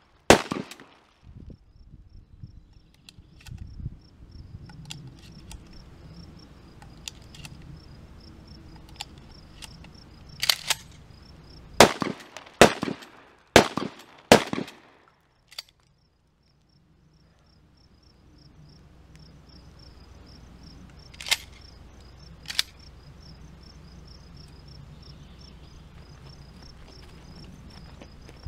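12-gauge Norinco HP9 pump-action shotgun with a 12-inch barrel firing: a shot at the start, then a quick string of five shots well under a second apart, and two more later, with lighter clicks between.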